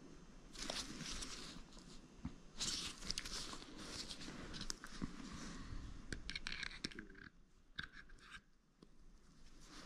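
Faint scraping and rustling in short, irregular bursts from hands working on the parts of an opened e-bike hub motor, quieter near the end.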